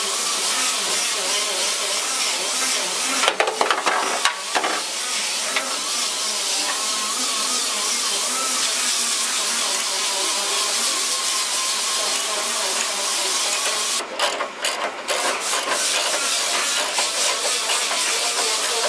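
A socket ratchet wrench clicks in short runs, about three to five seconds in and again around fourteen seconds, over a steady hiss.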